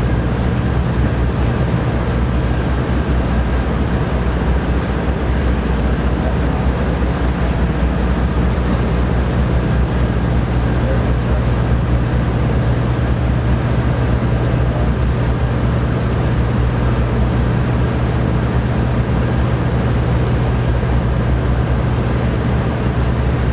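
A steady low machine hum that holds unchanged throughout, with no clear knocks or clinks above it.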